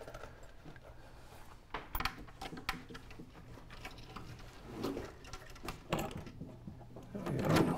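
Scattered light clicks and clinks as a wooden window sash and its metal sash chain are handled in the frame while the chain is fastened, over a low steady hum.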